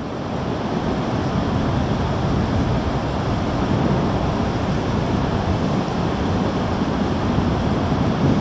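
Steady wind rumbling on the microphone, an even low hiss with no distinct engine note or other events.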